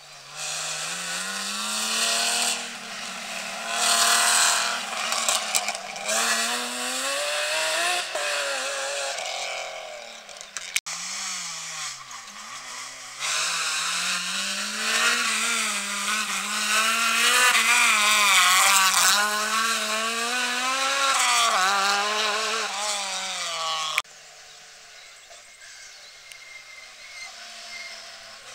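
Rally car engines at full throttle through a bend, revving up and dropping back again and again with gear changes and lifts. The sound cuts off suddenly about two-thirds of the way in, and a quieter engine then grows louder as the next car approaches.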